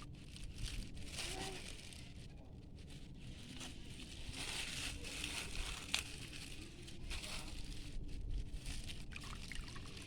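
Water trickling and pouring in uneven spurts with plastic crinkling: sap collected from tapped galangal stems being emptied out of the plastic it dripped into, with a sharp click about six seconds in.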